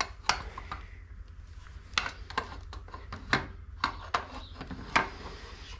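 Irregular light clicks and taps of metal parts being handled: the removed aluminium engine side cover of a Honda CRF450 and its fittings knocking together, a dozen or so scattered short knocks.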